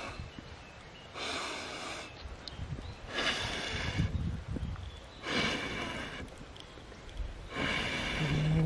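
Long breaths blown through a bamboo fire-blowing tube onto charcoal and wood, four rushing puffs of air about two seconds apart. The blowing revives a fire that has died down under a cooking pot.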